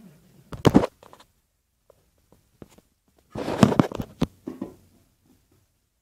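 Handling noise: rustling and bumping in two short bursts, about half a second in and again around three and a half seconds in, with a sharp click just after four seconds.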